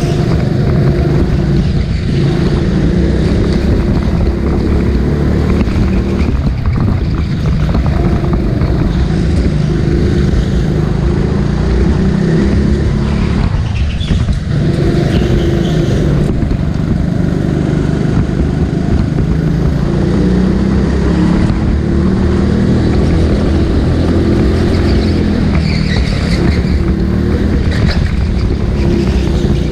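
Go-kart engine running hard around the track, its note rising and falling through the corners. It lifts briefly about six and fourteen seconds in.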